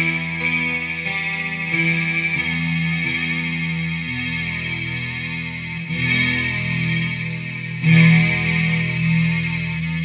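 Electric guitar played through a BOSS SY-200 synthesizer pedal, giving sustained synth-like tones that shift from note to note, with a fresh note struck about eight seconds in.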